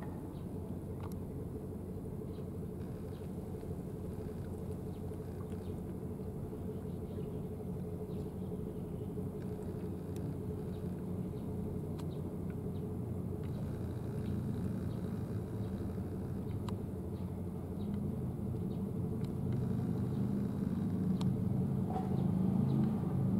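A steady low engine rumble with a constant hum, growing somewhat louder near the end, with a few faint ticks over it.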